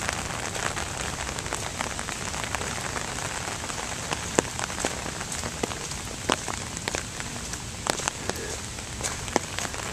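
Rain falling steadily, with frequent sharp taps of single drops landing close by.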